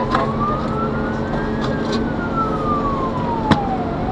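Fire engine siren in slow wail mode, heard from inside the cab of a Mercedes Atego 1530 fire truck: one tone rising for about a second and a half, falling for about two and a half seconds, then rising again, over steady engine and road noise. A sharp click about three and a half seconds in.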